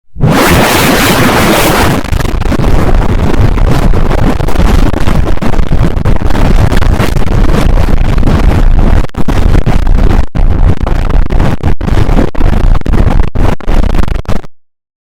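Heavily distorted emergency-alert render audio: loud, harsh noise with no clear tone. It is hissier for about the first two seconds, then heavy and rumbling, broken by brief dropouts from about nine seconds in, and it cuts off abruptly shortly before the end.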